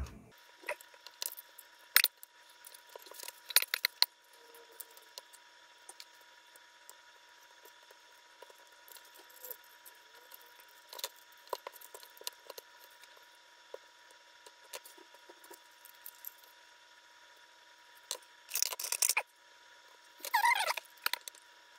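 Hands handling an opened plastic drone battery and small tools: scattered clicks and taps, with two short scraping bursts near the end.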